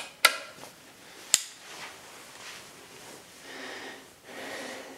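Sharp metallic clicks and clacks from an Air Arms TX200 air rifle being readied after a pellet is loaded, the loudest about a quarter second and a second and a half in. Two breaths follow near the end.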